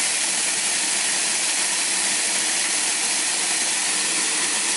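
Countertop blender motor running at high speed, grinding hard roasted yellow split peas dry into flour: a loud, steady whir.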